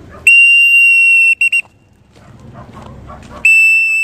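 Hand whistle blown at a steady high pitch in the feeding signal: one long blast followed by two short ones, then another long blast begins near the end. The pattern is a mealtime call that tells the dogs their owner is coming with food.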